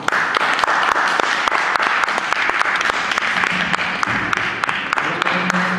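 Audience applauding: many hands clapping together, starting suddenly and holding steady in answer to a call for a big hand for a guest performer.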